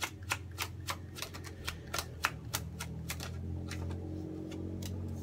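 A deck of tarot cards shuffled by hand, overhand: a quick run of light card slaps about three a second, thinning out after about three seconds.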